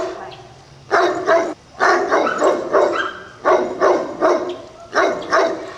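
Great Pyrenees barking loudly and repeatedly, the barks coming in quick pairs and threes about a dozen times, with another dog heard barking in the background.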